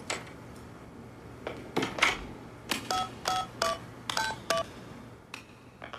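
Mobile phone keypad tones: about five short two-tone dialing beeps as a number is keyed in, after a few short knocks in the first couple of seconds.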